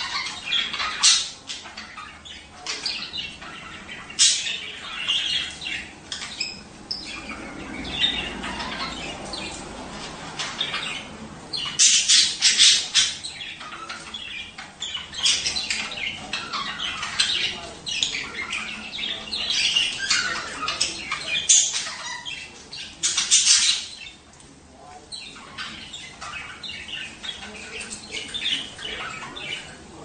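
Budgerigars chattering: a dense, continuous stream of chirps, warbles and squawks, with louder bursts about twelve and twenty-three seconds in.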